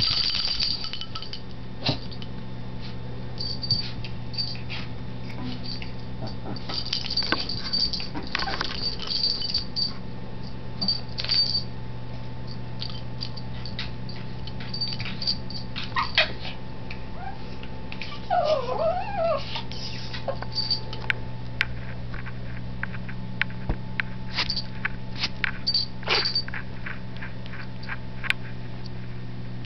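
Two Chihuahuas play-fighting on a bed: scattered scuffling and scratching sounds, with a short wavering whine about two-thirds of the way through. A steady low hum runs underneath.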